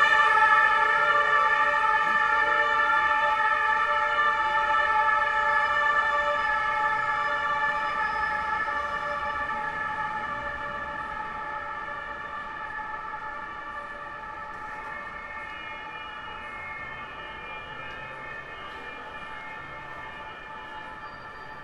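German police siren, a two-tone Martinshorn, sounding continuously and fading steadily over the whole stretch as the vehicle moves away.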